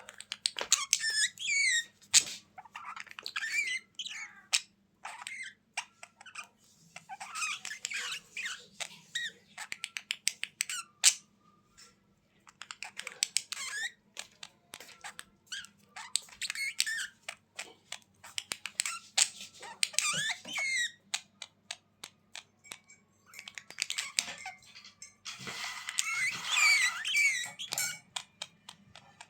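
Budgerigars chattering: bouts of quick, warbling chirps with sharp clicks and squeaks, broken by short pauses.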